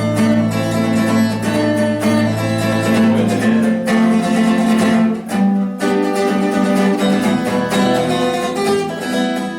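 Acoustic guitar strummed and picked through chord changes in an instrumental passage of a bard song, with no singing.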